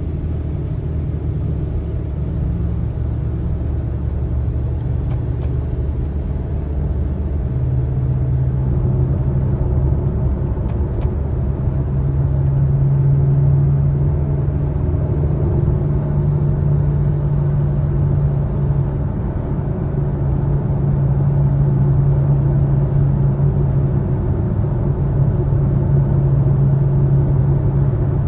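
A 2020 Subaru Ascent on the move, with steady low rumble and a low drone. The drone grows stronger about a third of the way in and then holds: the low humming noise the owner is complaining about.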